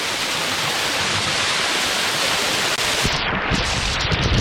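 Waterfall: a steady, loud rush of falling water. About three seconds in the sound turns dull and rumbling, with the hiss falling away.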